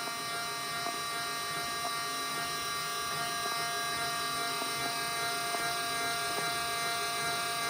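LeBlond Regal 19" x 54" engine lathe running steadily at 581 RPM after a hydraulic servo-shift speed change, a steady whine of many even tones.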